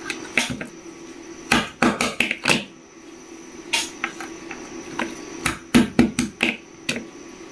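Light metal clicks and knocks in scattered clusters as the broken knife spring and its small steel sleeve from a buttonhole machine are handled and tapped against each other and the workbench. A faint low steady hum runs underneath.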